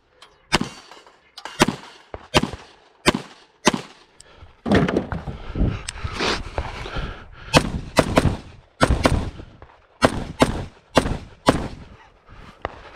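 Gunfire on a 3-gun stage: about five pistol shots at an even pace, roughly one every 0.7 s. After a short break come about ten louder shots from a scoped rifle in an uneven string, ending about a second and a half before the end.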